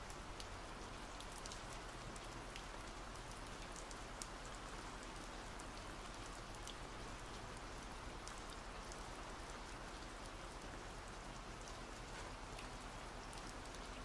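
Faint, steady rain: an even hiss with scattered small drop ticks.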